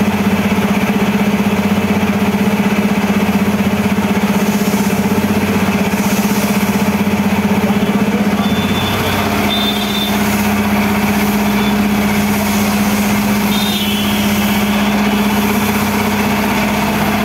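An engine idling steadily with a low, even hum. Its pitch drops slightly about nine seconds in and then holds.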